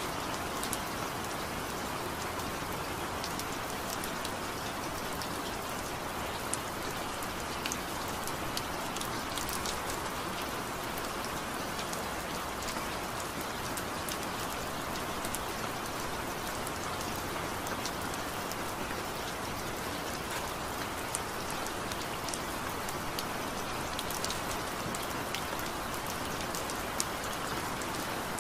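Steady rain: an even hiss with many scattered sharp drop ticks.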